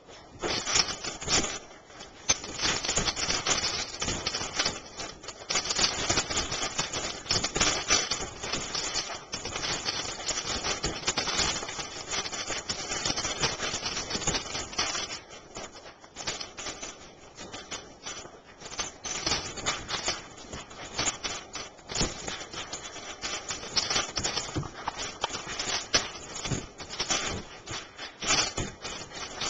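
Soft Coated Wheaten Terrier's claws clattering fast on a tile floor as it spins and scrambles about: a dense, uneven run of clicks.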